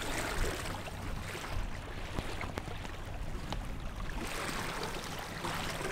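Small motorboat running across open water: a steady motor hum under the rush of water along the hull.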